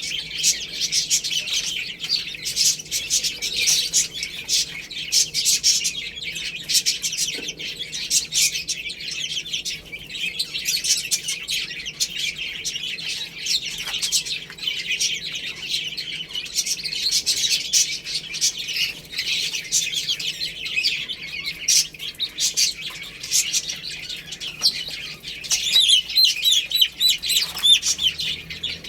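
A group of baby chicks peeping, with many high chirps overlapping without pause.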